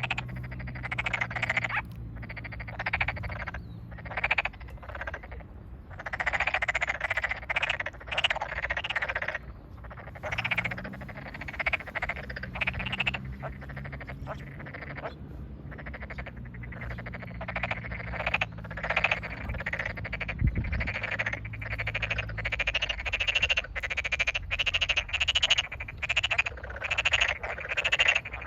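Tokyo daruma pond frogs calling in chorus: short croaking calls repeated one after another from several frogs, overlapping, coming thicker toward the end.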